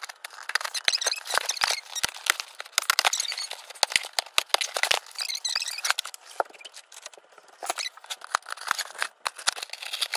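Packaging being handled as a box is unboxed: paper and plastic rustling and crinkling, with many quick sharp crackles and clicks.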